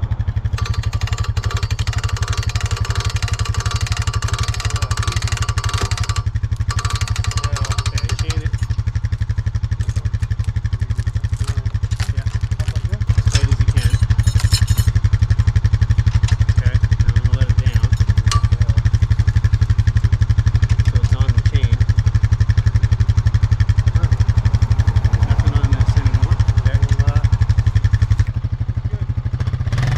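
Four-wheeler (ATV) engine running steadily while towing a log skidding arch. It gets louder about halfway through as it is throttled up, then drops back near the end.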